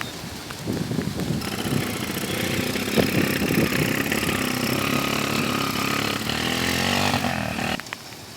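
A small petrol engine running steadily over the constant hiss of heavy rain. The engine sound cuts off abruptly near the end.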